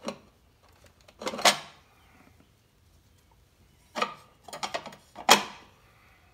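Hard plastic and metal mower parts knocking and clattering as the Greenworks mower's electric motor and its gear are handled and fitted back into the gear housing: a handful of sharp knocks, the loudest about a second and a half in and again just after five seconds.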